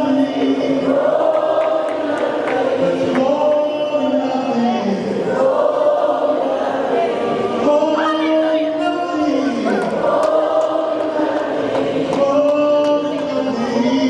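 A group of voices singing together a slow melody in long held notes that slide down between pitches.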